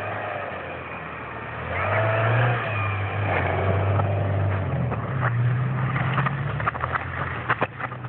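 Land Rover Freelander's 1.8-litre four-cylinder petrol engine revving hard as the car slides and spins its wheels through deep snow. The engine note swells about two seconds in and stays high. A few sharp clicks come near the end.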